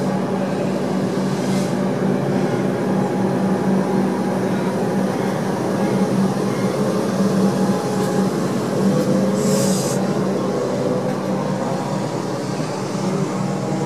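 Metro Trains Melbourne suburban electric train pulling away from the platform and gathering speed: a steady low electric hum over rolling wheels, with a fainter motor whine rising slowly in pitch. There is a brief hiss about two-thirds through.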